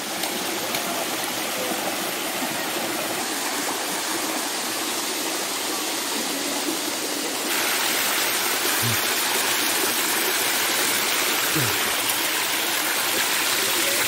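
Water of a waterfall cascade rushing and splashing over rocks close by, a steady noise that gets louder about halfway through.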